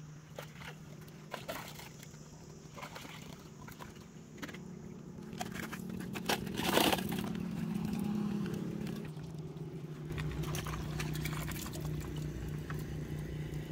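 Water splashing and sloshing with scraping and knocking as a fine-mesh fish trap net is handled, with a louder burst about seven seconds in, over a steady low hum.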